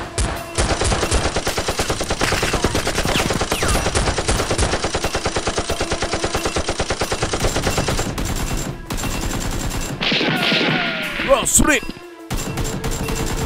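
Rapid automatic gunfire sound effect, a long run of fast shots that stops about eight seconds in. After a short break, further shots follow, with a few falling whistling sweeps and one loud hit near the end.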